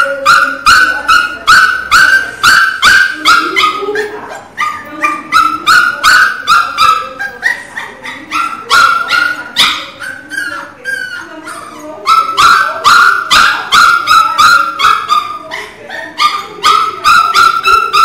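Newborn pinscher puppy crying loudly: rapid high-pitched squealing cries, about three a second, in runs broken by short pauses.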